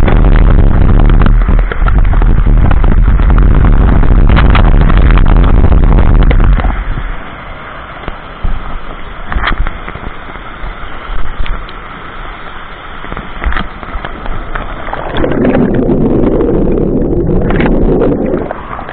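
Waterfall water pouring straight onto the camera: a loud, dense rushing with a heavy low rumble. About six and a half seconds in it drops to the quieter steady rush of the falls and the stream, with a few sharp knocks, and near the end the sound turns muffled and bubbling as the camera goes under the water.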